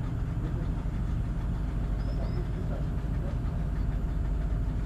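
Steady low mechanical hum of a running engine, unchanging throughout.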